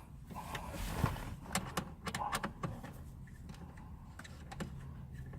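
Light clicks and knocks of plastic car interior trim being handled and fitted back into the centre console, most of them bunched about a second to three seconds in.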